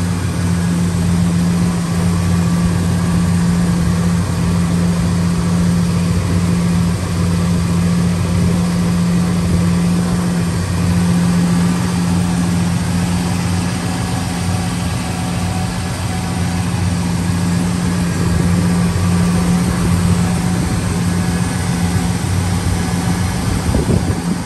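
Ford 400 cubic-inch V8 of a 1978 Ford Ranchero GT idling steadily with the hood open, an even low hum.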